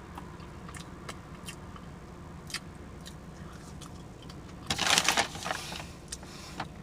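Close-up eating sounds: chewing and mouth smacking with scattered sharp clicks, and a louder crackly burst about five seconds in.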